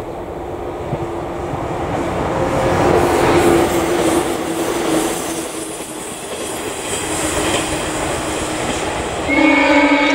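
Shinano Railway 115-series electric train running across a steel truss bridge as it approaches, a continuous rumble with a steady tone that swells about three to five seconds in. Near the end a train horn sounds, one steady note held for over a second.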